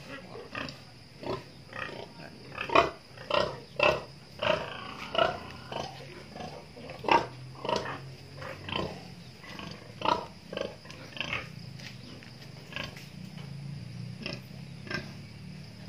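Pigs grunting, a string of short grunts about two a second, fewer and fainter in the last few seconds.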